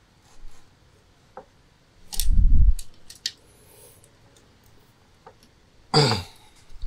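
Screws being tightened into the cast aluminium crankcase halves of a Minsk 125 motorcycle engine with a hand tool: scattered light metallic clicks, with a dull thump about two seconds in.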